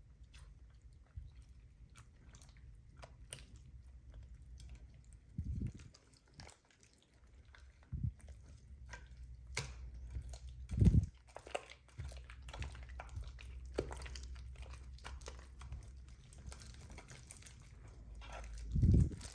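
Slime being squished and worked by hand, with many small sticky clicks and crackles throughout. There are four dull thumps, the loudest about eleven seconds in.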